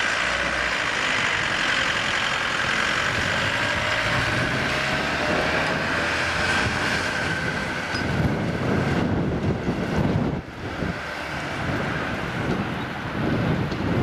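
A heavy vehicle's engine running with a steady high whine, and wind buffeting the microphone from about eight seconds in.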